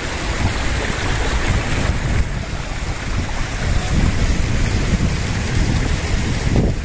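Wind buffeting the microphone in an uneven low rumble, over the steady rush of a shallow rocky stream.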